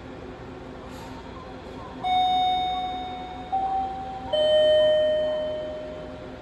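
Electronic station chime over the public-address system: three ringing notes, the first about two seconds in and the next two at intervals of about a second, each fading slowly over a low steady room hum.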